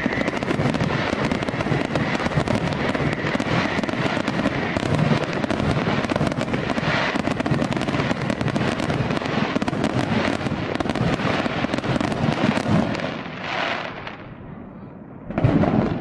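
Fireworks display: a dense, continuous barrage of crackling and popping bursts. It thins out and fades about three-quarters of the way through, then one more loud burst goes off near the end.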